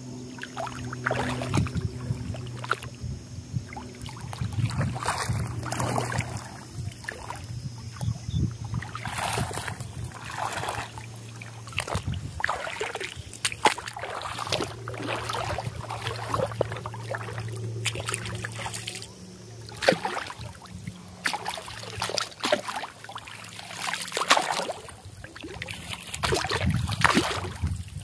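Splashing in shallow lake water, short irregular splashes about every second, as a hooked rohu is drawn in through the shallows on a hand line. A steady low hum runs underneath.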